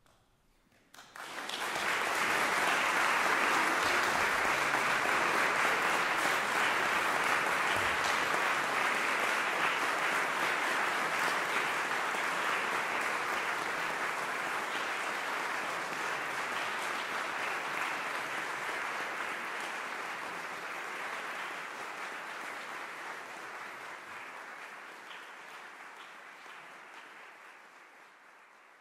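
Audience applauding at the close of a live performance, breaking out suddenly about a second in after a silence, holding steady, then slowly dying away over the last several seconds.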